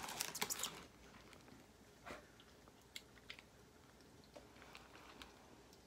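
A person chewing a mouthful of donut close to the microphone: a cluster of soft wet mouth clicks in the first second, then only faint scattered clicks.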